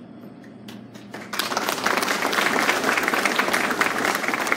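Audience applauding, starting about a second in with a few scattered claps and swelling into steady applause.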